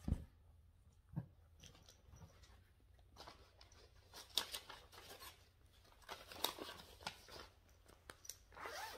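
Quiet handling noise: rustling and crinkling of paper, fabric and plastic project bags, with scattered clicks and a soft thump at the start and another about a second in.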